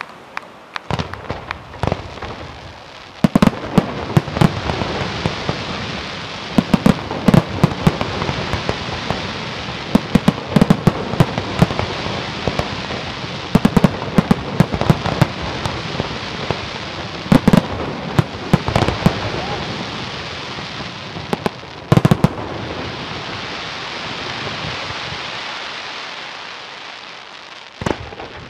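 Scarsella Fireworks' aerial fireworks bursting: rapid volleys of sharp bangs over a continuous crackling hiss, starting about three seconds in. After a last loud bang a little past twenty seconds, the crackle fades away near the end.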